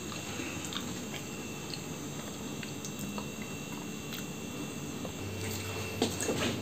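Room tone: a low steady hum with a faint high steady whine, and a few soft clicks and rustles of handling, a little more about six seconds in.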